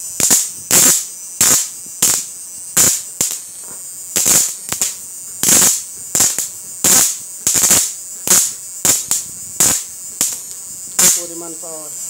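A 12 V IGBT electrofishing machine's output arcing as its probe is touched to a metal bar: a run of short, sharp buzzing crackles, about one and a half a second, during a power test of the shocker.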